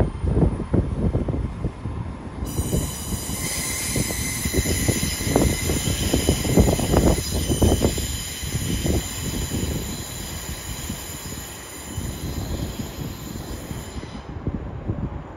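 Great Western Railway Intercity Express Train running slowly round a tight curve into the platform, its wheels giving a steady high-pitched squeal from a couple of seconds in until near the end, over the low rumble of the train.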